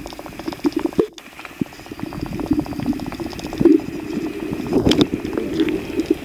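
Underwater sound from a camera held below the surface: dense crackling and bubbling of water, with a short break about a second in.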